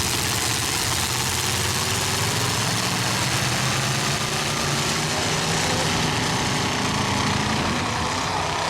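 Derby trucks' engines running together in a steady, loud din.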